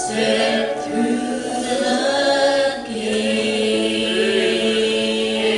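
A small group of mixed voices singing a gospel song in harmony, on long held notes, accompanied by two strummed acoustic guitars.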